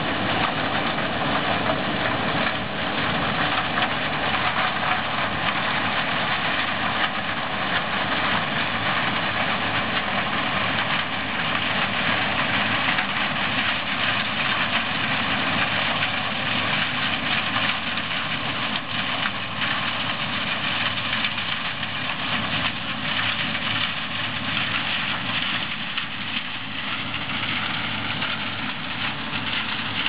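Claas Lexion 450 combine harvester running steadily while harvesting maize: an even, continuous engine and machinery noise that eases slightly near the end.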